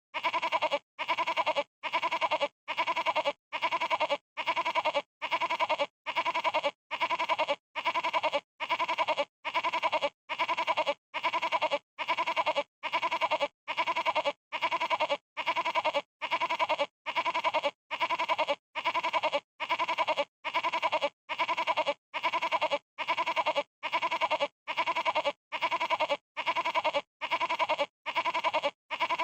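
Goat bleating a stuttering baa, the pitch broken into rapid pulses, repeated as the same call about once a second with short silent gaps between.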